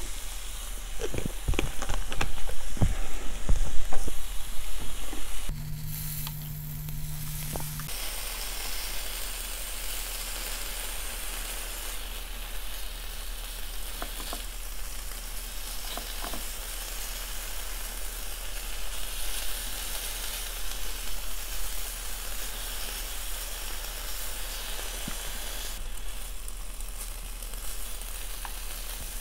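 Beef sizzling on a hot ridged grill pan over a mini brazier, a steady frying hiss that he calls insane. In the first five seconds a few loud sharp clicks and knocks stand out, followed by a short low hum.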